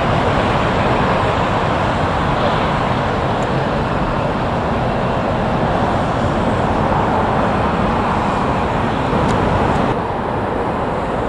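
Steady engine noise from a jet airliner on approach to land, with an abrupt drop in level about ten seconds in.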